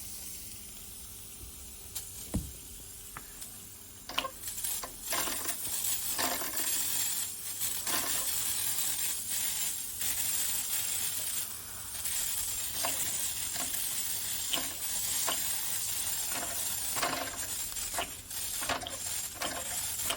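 Mamod SE1 toy steam engine's boiler hissing and sizzling, with irregular spitting crackles from about four seconds in, as steam and water escape from its leaking top pipe. The owner suspects the boiler has run out of water.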